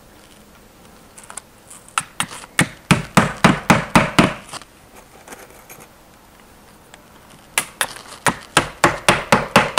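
A claw hammer driving nails through vinyl J-channel into a wall: two runs of rapid strikes, each a couple of seconds long, the first starting about two seconds in and the second near the end.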